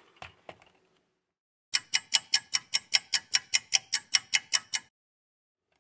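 Clock-ticking sound effect: about sixteen even, sharp ticks at roughly five a second, starting near two seconds in and lasting about three seconds.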